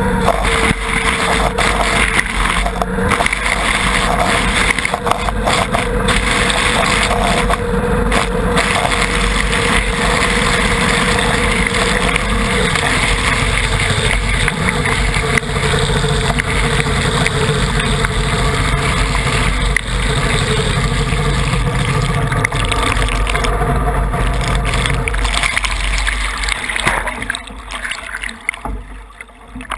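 Racing tunnel boat's outboard motor running at speed under loud rushing water and spray at the transom. Near the end the sound drops away as the boat slows and settles, leaving water sloshing and gurgling against the hull.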